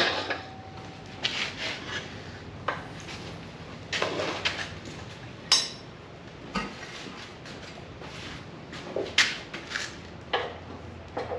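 Metal clanks and rattles at irregular intervals as a steel log catcher is handled and swung into place on a log splitter, with one brief ringing clank near the start.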